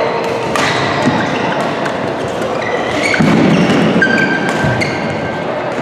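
Badminton rally: several sharp cracks of rackets striking the shuttlecock, with short high squeaks of court shoes on the floor, all echoing in a large sports hall.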